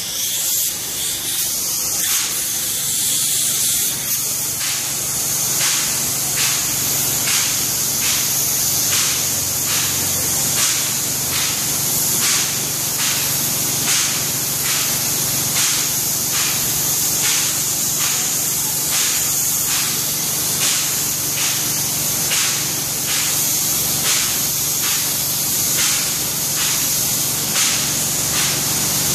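Spray gun applying Permaseal roof coating, a steady high hiss of spraying that runs without a break. A faint regular pulse, about once every 0.7 seconds, runs under the hiss from a few seconds in.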